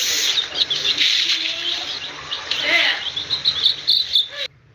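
Chicks peeping: a busy stream of short, high chirps, with a few lower calls in the middle, cutting off suddenly near the end.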